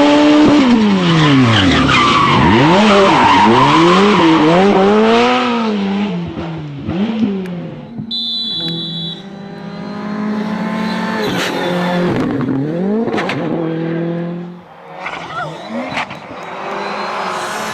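Rally car engines revving hard, pitch climbing and dropping quickly through gear changes, with tyres squealing and skidding. About eight seconds in a brief high steady tone sounds, then an engine holds a steadier note before the sound drops away and rises again near the end.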